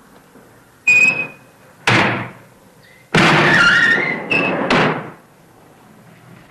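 Metal latch and hatch on a furnace door being worked open. A sudden clank with a short metallic ring about a second in, a second clank a second later, then a longer grinding scrape with squealing metal and a couple more knocks, fading out before the end.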